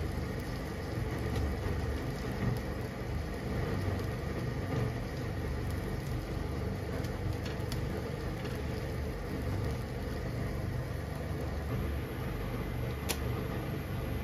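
Spaghetti and onion boiling in water in a frying pan on a stove burner: a steady low rumble. Light clicks come from tongs against the pan, with one sharper click near the end.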